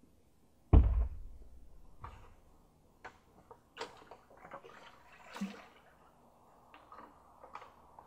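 A hollow plastic thump about a second in as the washer's lid is handled, followed by a string of lighter knocks, clicks and clatters of plastic being moved about.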